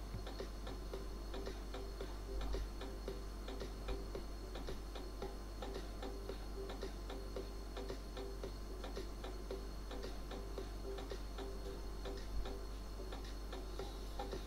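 Faint, regular ticking of a clock, about three ticks a second, over a steady low electrical hum.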